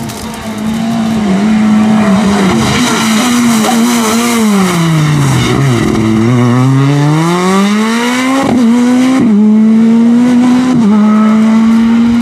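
Skoda Fabia Super 2000 rally car's two-litre four-cylinder engine at high revs. Its pitch falls as the car slows for a tight bend about five seconds in, then climbs again as it accelerates away. Quick gear changes break the note about eight and a half and nine seconds in, and once more near eleven.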